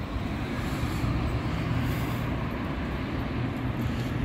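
Steady low drone of downtown street traffic: vehicle engines running with a constant low hum.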